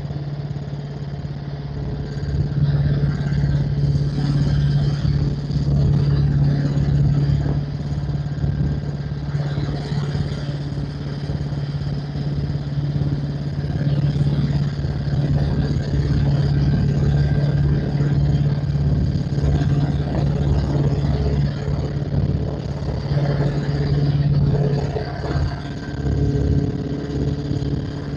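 Helicopter running on the ground after landing: a steady engine drone with the fast, even beat of the turning rotor.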